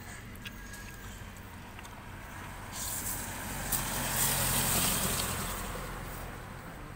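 A motor vehicle passing on the road, its sound swelling to a peak a little past the middle and fading away, with a low engine hum underneath.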